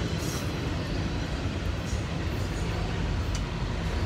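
Double-stack intermodal freight train rolling past at close range: a steady rumble and clatter of the well cars' wheels on the rails.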